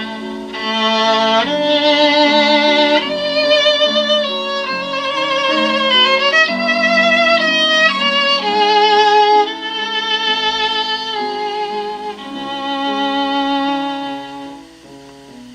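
Recorded violin music played back through a 6BM8 single-ended tube amplifier and bare Isophon oval loudspeakers: a melody of held, vibrato notes over lower accompanying notes, growing softer near the end.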